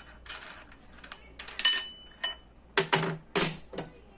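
Metal parts of a cordless angle grinder being handled and fitted: a run of clinks and clatters, the two loudest about three and three and a half seconds in.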